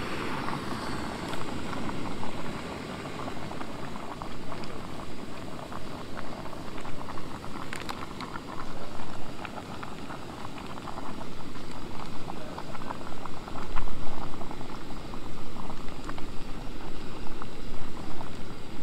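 Water boiling in a small pot on a backpacking canister stove: a steady bubbling hiss with scattered small clicks and crackles.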